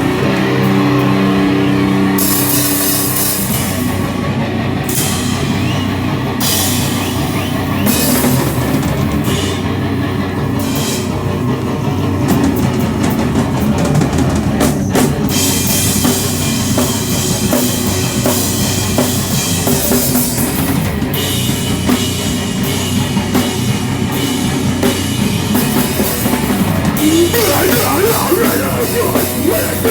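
Loud live heavy rock band playing: distorted electric guitar chords ring out at first, then the drum kit and crashing cymbals come in about two seconds in and the full band plays on.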